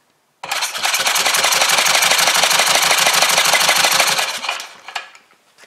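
Electric starter cranking a small single-cylinder Chinese Honda-clone engine over for a compression test, with a gauge screwed into the cylinder. It runs in a fast, even beat for about four seconds, starting about half a second in, then winds down and stops.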